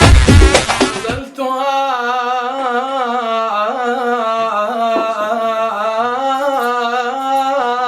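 Loud drum-driven dance music stops abruptly about a second in. It is followed by a slow, unaccompanied solo voice holding a long, winding melismatic note.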